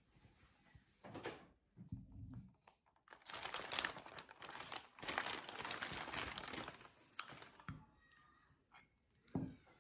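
Kraft wrapping paper being unfolded and crumpled by hand to unwrap a small ceramic bowl, with a brief rustle first and then several seconds of loud crinkling. A few light clicks and a soft knock follow near the end.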